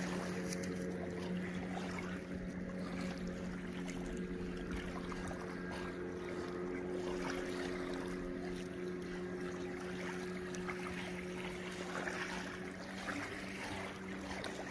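Steady low engine hum holding one pitch throughout, with small waves lapping at the shore.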